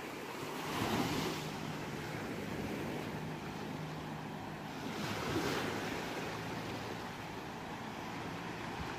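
Ocean waves washing onto a shore, with two waves swelling and breaking, about a second in and again around five and a half seconds, over a steady wash of surf.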